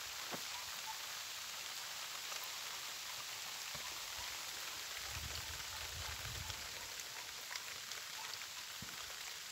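Light rain falling on the surrounding vegetation, an even soft hiss with a few faint drop ticks. A brief low rumble comes about five seconds in.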